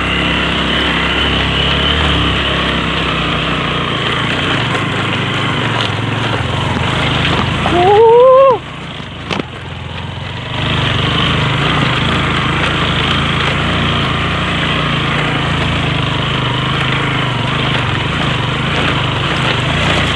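Motorcycle engine running steadily while riding up a dirt trail. About eight seconds in, a short, loud rising tone cuts in, and the engine sound drops away for about two seconds before picking up again.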